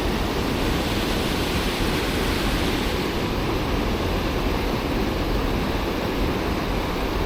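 Steady rush of high water pouring over a small dam in a flooded stream.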